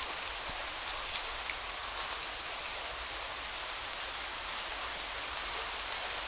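Steady rain falling, an even hiss with scattered sharper raindrop ticks.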